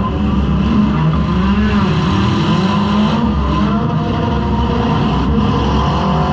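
Four-cylinder demolition derby car's engine running loud, heard from inside the car, its pitch rising and falling as it revs up and down.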